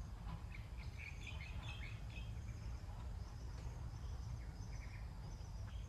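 Garden ambience: birds giving short chirps, mostly in the first half, over a steady high insect trill and a low rumble underneath.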